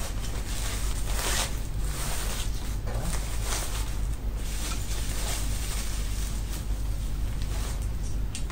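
Cloth rustling and swishing in irregular strokes as a sword is slid out of its fabric sword bag and handled, over a steady low hum.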